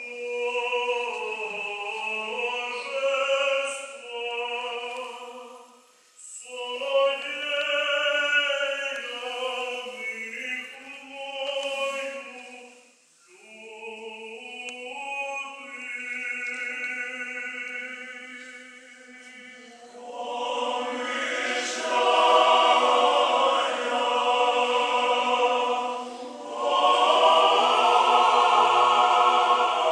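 Orthodox church choir singing liturgical chant a cappella, in long phrases with brief breaks about six and thirteen seconds in. The singing grows louder and fuller about twenty seconds in.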